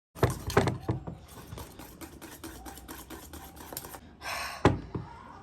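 A whisk stirring batter in a bowl, with quick repeated clicks and scrapes of the whisk against the bowl, then one louder knock near the end.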